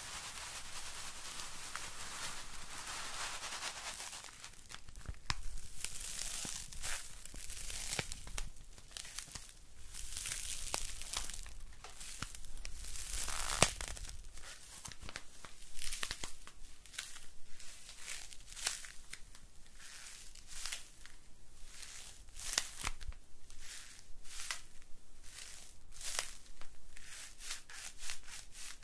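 A roll of soft white paper rubbed, scratched and squeezed with the fingertips right at the microphones. A steady rustle for the first few seconds gives way to a run of separate crinkly scrapes and squeezes, coming quicker toward the end.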